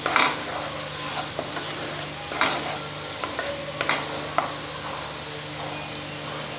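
Spice paste sizzling in oil in a non-stick pan over a low flame, with a spatula scraping and stirring it about four times in the first few seconds.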